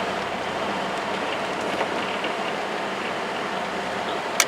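Steady cab noise of a moving Ford F-150 pickup with the 4.9-litre (300 cu in) fuel-injected inline-six: an even rush of engine and road noise, with one sharp click near the end.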